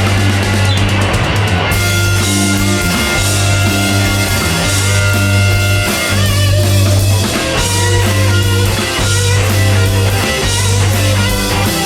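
Rock band playing live in an instrumental passage: electric guitars, keyboards, bass and drum kit, with a heavy held bass line.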